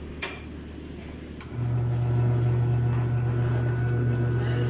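Tire changer's electric turntable motor running with a steady low hum, worked by its foot pedal. Two clicks come first, then the motor starts about a second and a half in and keeps running.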